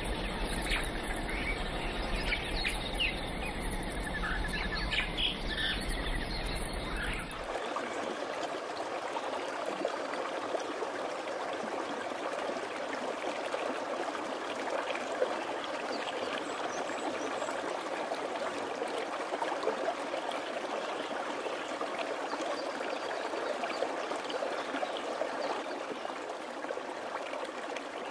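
Scattered bird chirps over forest background noise. About seven seconds in, this switches suddenly to the steady rush of flowing water, like a stream.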